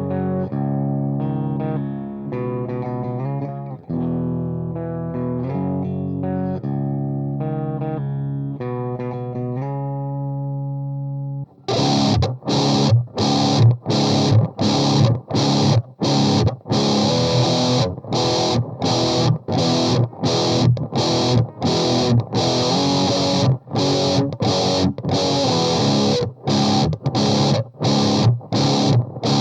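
Electric guitar through the Saphue Crunch Distortion pedal and an Orange Rocker 15 valve amp into a Celestion Vintage 30 speaker. It starts with held, ringing chords with only light grit, then about eleven seconds in kicks into a heavily distorted, palm-muted chugging riff with short, sharp stops.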